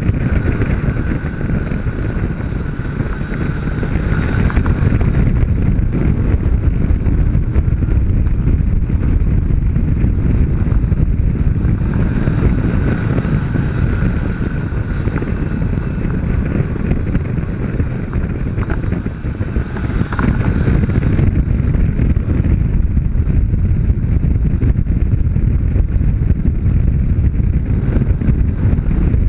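Wind buffeting the microphone while a Honda CB 500 is ridden at track speed, with the bike's parallel-twin engine running steadily underneath.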